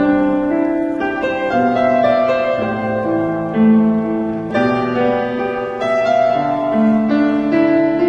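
Piano music, a melody of held notes changing every half second or so: the skater's free skate program music.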